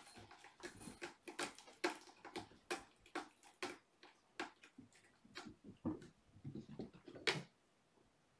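Kittens scrambling on a carpeted cat tree: irregular clicks, scratches and soft thumps of claws and paws, several a second, with a louder knock near the end.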